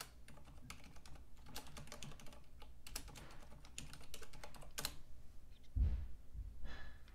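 Typing on a computer keyboard: a run of irregular key clicks as a terminal command is typed, with a dull low thump near the end.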